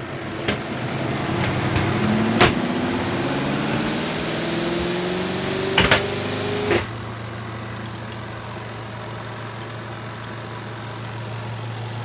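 Kuppet twin-tub portable washer's spin motor spinning up a load of wet laundry in the spin basket: a whine rising in pitch for about seven seconds, with a few knocks along the way, then settling into a steady low hum at full speed.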